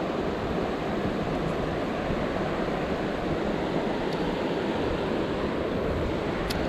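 Steady rushing of river water around the microphone, with one faint click near the end.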